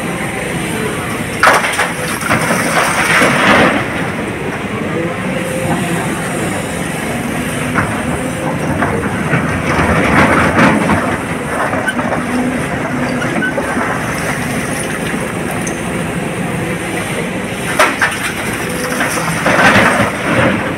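SANY hydraulic excavator's diesel engine and hydraulics running steadily, heard from the operator's cab, while the bucket digs into blasted rock and dumps it into a dump truck's steel body. Three bursts of rock clatter stand out: about one and a half seconds in, around ten seconds, and near the end as a load drops into the truck.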